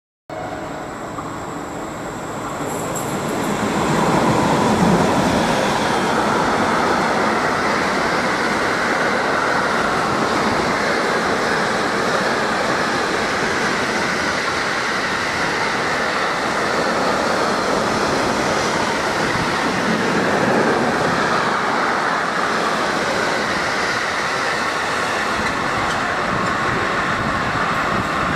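Intermodal freight train passing through a station, wheels running on the rails in a steady rumble that swells about four seconds in as the front of the train arrives, then holds as the long line of wagons goes by.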